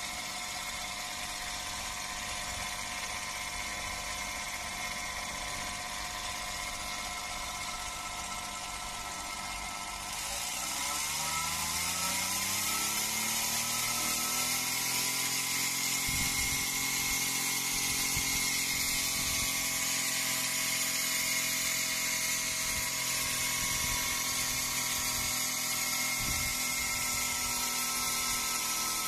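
Pneumatic air agitator's air motor running, a steady whine with a hiss of exhaust air. About ten seconds in, the brass speed valve on its air inlet is opened and the whine climbs in pitch and gets louder over a few seconds as the mixer speeds up, then holds steady at the higher speed.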